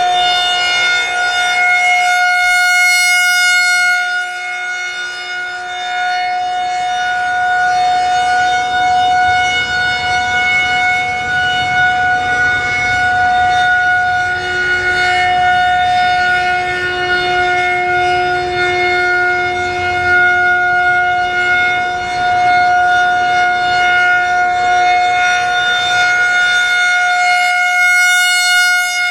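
Federal Signal 2001-130 rotating outdoor warning siren sounding a steady single-pitch tone for a routine monthly test. Its loudness swells and fades as the rotating horn turns toward and away, loudest and brightest near the start and again near the end.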